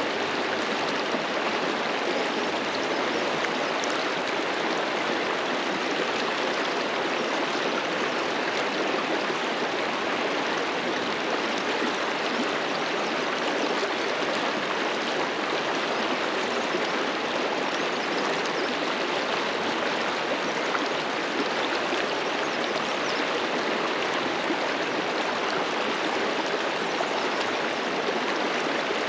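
Mountain river flowing over rocks: a steady rushing of water.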